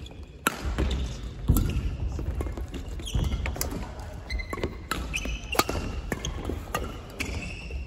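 Badminton rally: sharp cracks of rackets hitting the shuttlecock, with short squeaks of court shoes and thuds of footsteps on the wooden hall floor.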